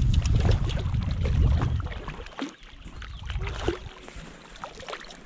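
A hooked rainbow trout splashing and thrashing at the surface of the water close in, a string of small splashes and slaps. A low rumble on the microphone dies away about two seconds in.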